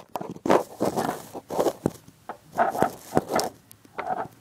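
Close handling noise: a quick, uneven series of rustling, rubbing and scraping scuffs.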